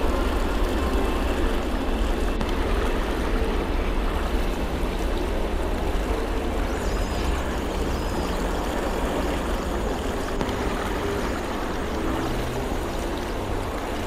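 A steady, dense wash of noise with a strong low rumble and a few faint held tones underneath, easing slightly toward the end.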